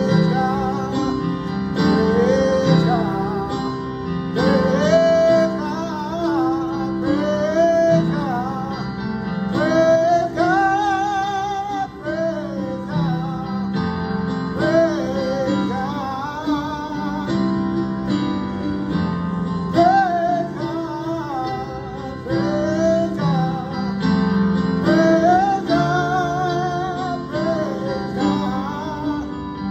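A man singing a slow solo to his own accompaniment on an electronic keyboard. His voice slides between notes, with wide vibrato on the held ones, over sustained keyboard chords.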